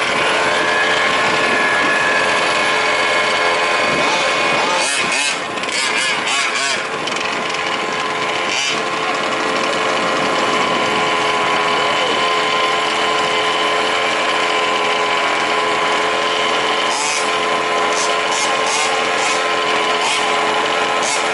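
Small two-stroke petrol engines of 1/5-scale RC trucks running with a steady high buzz. There are bursts of short sharp clatters about five seconds in and again near the end.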